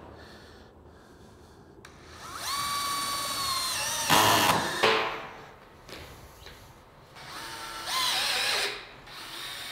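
Cordless drill driving neoprene-washer screws through steel trim into PBR metal roof panels. There are two runs of a steady motor whine, the first about two seconds in ending in a brief loud burst as the screw seats, the second about seven seconds in. A third run starts near the end.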